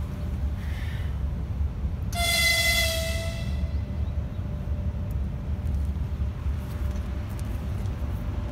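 A diesel locomotive's horn sounds one toot of about a second and a half, about two seconds in, over a steady low rumble.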